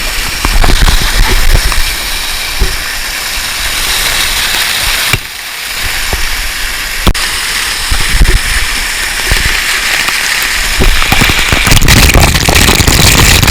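Waterfall water pouring and splashing right by the microphone: a loud, continuous rush full of crackling spatters, with a brief lull about five seconds in.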